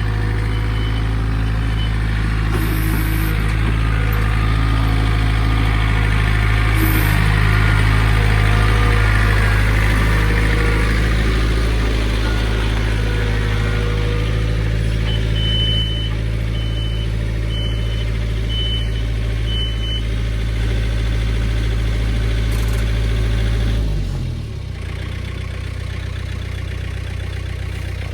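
Tractor engine running steadily under load while dragging a chained log, then throttled down to a lower idle near the end. Five short high beeps about a second apart come partway through.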